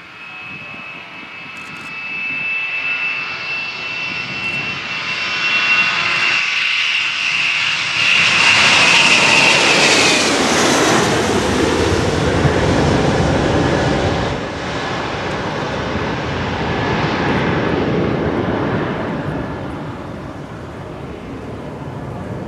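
Boeing 717's two Rolls-Royce BR715 turbofans at takeoff power as the jet climbs low directly overhead: a high fan whine grows louder, then drops in pitch about ten seconds in as the aircraft passes, leaving a loud rumbling roar that slowly fades.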